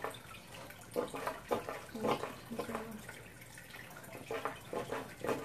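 Aqueon manual gravel-vacuum siphon drawing aquarium water through its tube and hose, with irregular gurgles and clicks.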